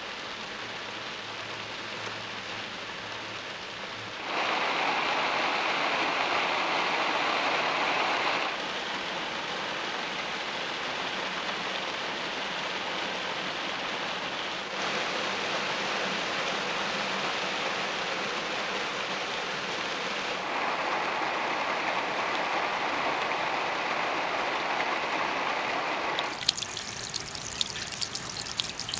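Heavy rain falling, a steady hiss of water whose level jumps up or down abruptly every few seconds. Near the end it gives way to quick, irregular drips and trickling water.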